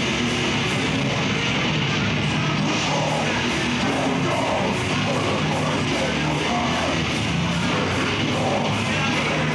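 Death metal band playing live: distorted guitars and drums in a loud, dense wall of sound with a fast, steady beat.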